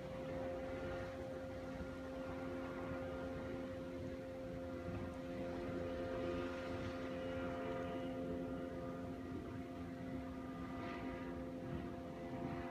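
Steady mechanical hum holding several even tones without change, over a low rumble.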